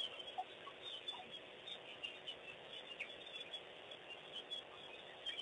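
Faint dusk chorus of birds: many short, high chirps and calls scattered through, over a steady background hiss.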